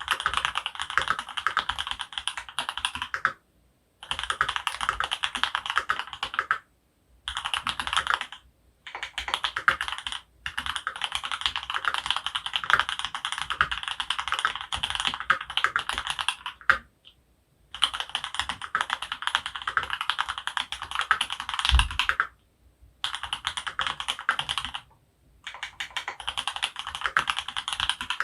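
Mechanical keyboard typing on lubed Lilac linear switches (Krytox 205g0, filmed) in an Archon RE:AL Platinum FX with an aluminum plate: fast runs of keystrokes broken by short pauses every few seconds.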